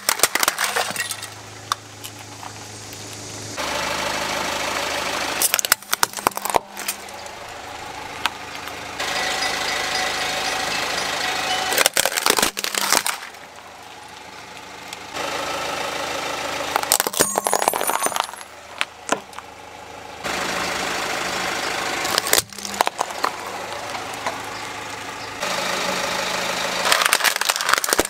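Plastic toys cracking and snapping as a car tyre rolls over and crushes them, about six bursts of crunching a few seconds apart, with the car's engine running steadily in between.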